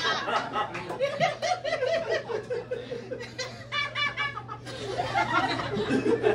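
Audience laughing and chuckling.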